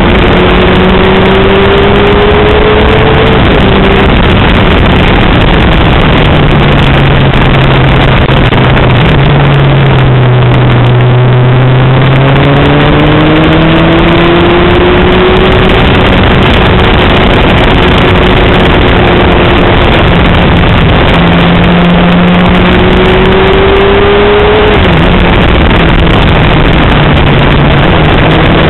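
Motorcycle engine under way over a constant loud rush: the revs climb and drop sharply about 3.5 s in, sag to their lowest around 11 s, climb again, drop sharply once more near 25 s, and then rise again.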